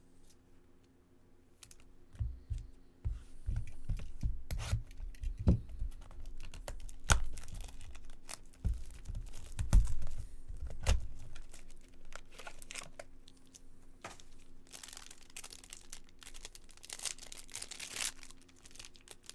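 Trading-card packs being opened by hand: a run of sharp taps and knocks of packs and cards being handled, then a stretch of foil wrappers being torn and crinkled near the end.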